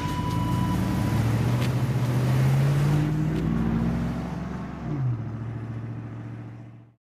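A car engine speeding up, its pitch rising for a few seconds, then dropping about five seconds in and holding steady before the sound fades out.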